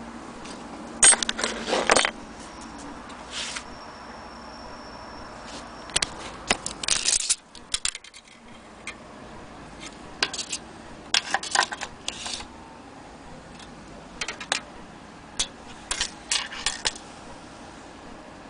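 Light metallic clicks and rattles in several short clusters, as the vintage Enfield mantle clock is handled; the loudest group comes about a second in.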